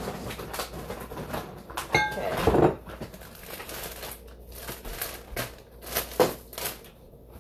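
Plastic zipper storage bag crinkling and rustling as it is held open and handled while marinated chicken is put into it, with a louder knock about two and a half seconds in.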